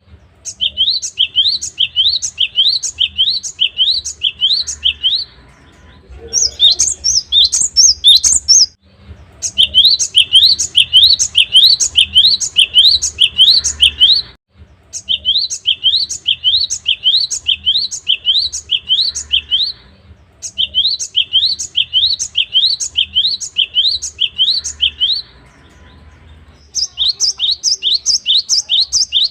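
Cinereous tit (gelatik batu) singing: runs of rapid, repeated sharp notes, about three a second, each a quick upward sweep, broken into six bursts of a few seconds each by short pauses.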